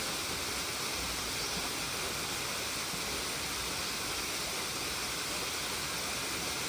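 Steady rushing roar of a waterfall, an even wash of water noise without breaks.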